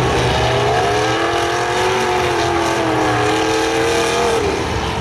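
Demolition derby cars' engines running hard over a dense low rumble. One engine's pitch climbs about half a second in, holds high for a few seconds, then drops away near the end.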